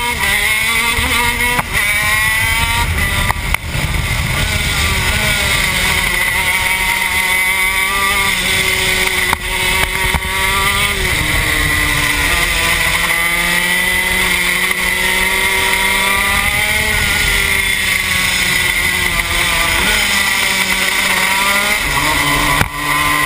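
TM K9c 125 cc two-stroke shifter kart engine at racing speed, heard onboard. Its pitch climbs and falls through corners and gear changes, dropping sharply at several downshifts.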